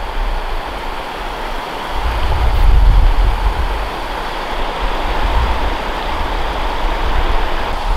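River water running over rocks and a low rock weir in small rapids, a steady rushing. A low rumble on the microphone comes in about two seconds in and is loudest about a second later.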